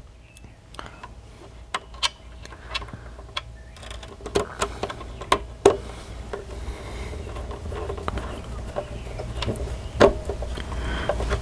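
Irregular small metal clicks and taps from a ground wire being fastened by hand onto a VFD's ground terminal, over a steady low hum.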